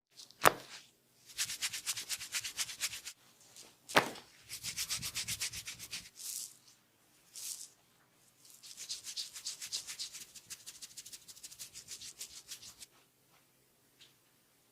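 Hands rubbing briskly through hair on a scalp during a barber's head massage: three runs of rapid, scratchy strokes, several a second. Two sharp smacks stand out, one near the start and one about four seconds in.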